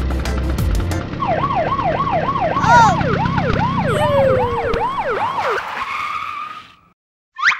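Police siren sound effect: a fast up-and-down wail, about two to three sweeps a second, that fades out a little before the end. A short rising chirp follows near the end.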